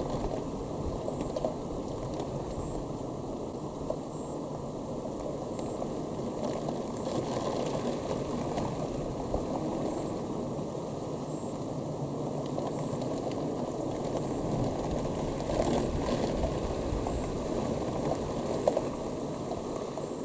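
Steady rain falling during a thunderstorm, a continuous even hiss, with the last of a low thunder rumble fading away in the first second.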